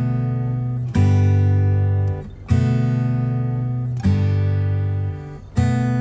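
Background music: an acoustic guitar strumming chords, a new chord struck about every second and a half and left ringing.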